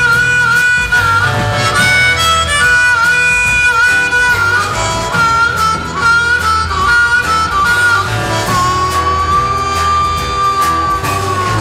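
Blues harmonica playing a solo in a live band recording, with electric guitar, bass and drums behind it. It plays short bending phrases, then holds one long note near the end.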